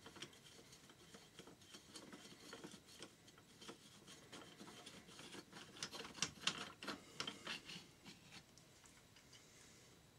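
Faint, irregular metallic clicks and scraping of hand tools working on engine fasteners, busiest a little past halfway and dying away near the end.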